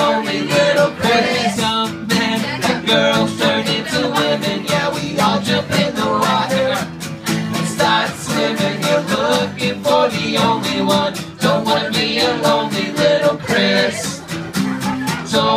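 Two acoustic guitars strummed together in a steady rhythm, with a man singing over them.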